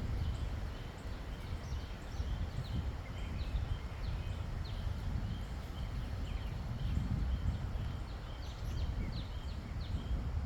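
Wind rumbling on the microphone while small birds chirp repeatedly, with many short, quick, high notes.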